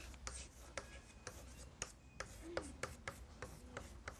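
Chalk writing on a blackboard: a run of faint, quick taps and short scratches as each stroke of the letters is made, a dozen or more in a few seconds.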